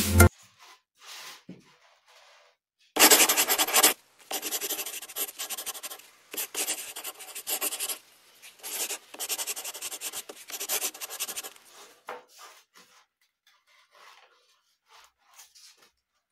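Hand rubbing and scraping on paper at a tabletop: a dense run of quick strokes from about three seconds in to past eleven seconds, then fainter, scattered rubs. Background music cuts off just after the start.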